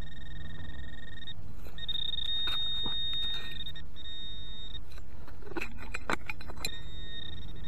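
A metal detector giving a steady high electronic tone that cuts out and comes back several times, over the scrapes and clicks of digging into hard, dry soil.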